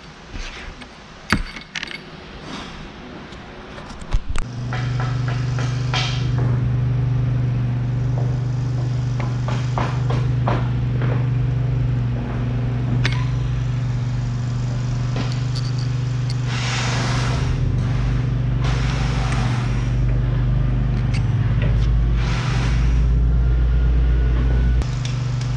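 A few light metal clinks, then about four seconds in a motor starts and runs with a loud, steady low hum. Near the end there are three short hissing bursts, each about a second long.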